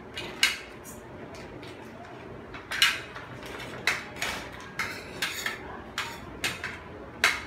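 A spoon clinking against plates and a metal pot as rice is served out: a string of sharp, irregular clinks, a few of them louder than the rest.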